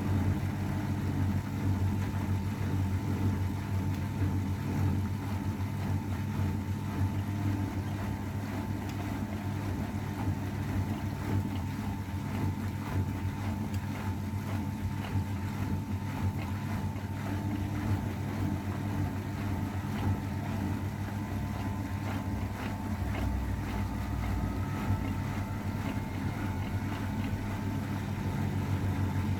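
AEG Öko_Lavamat 693 washing machine running mid-cycle: a steady low motor hum with a thin whine, and small irregular clicks and knocks from the drum.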